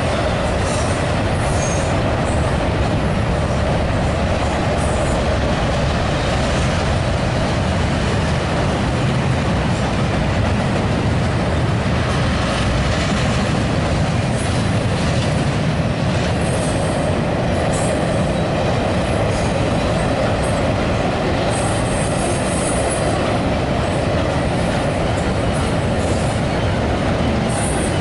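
Canadian Pacific double-stack container freight train rolling steadily across a steel trestle bridge: a continuous, even rumble of wheels on rail.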